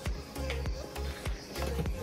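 Background music with a steady beat, about one stroke every 0.6 seconds, over a held bass line and a simple melody.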